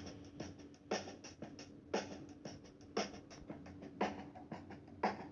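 Background music: a drum beat with a heavy hit about once a second and lighter ticks in between.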